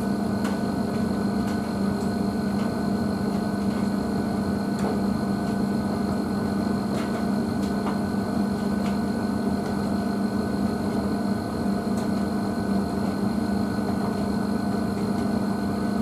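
Blomberg WNF9448 front-loading washing machine running with water and dog bedding in the drum: a steady motor hum with a few faint clicks.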